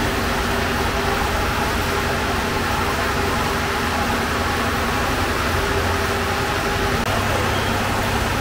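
A steady mechanical drone of the bakery's running machinery: an even rush with a low hum underneath and no distinct knocks or pauses.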